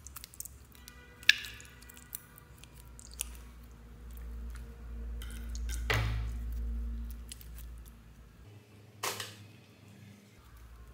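Scissors cutting open a mesh squishy stress ball, with one sharp snip about a second in, then wet squishing as its red glitter filling is squeezed out onto slime.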